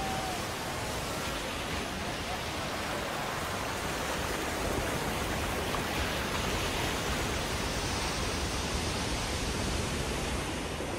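Surf breaking and churning over rocks: a steady, even rush of white water.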